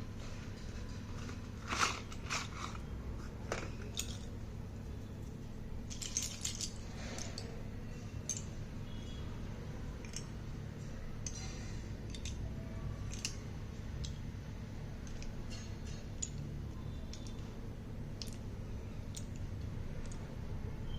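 Slate pencils and their packaging being handled, making scattered light clicks and clinks, with sharper knocks about two seconds in and again around six seconds, over a steady low hum.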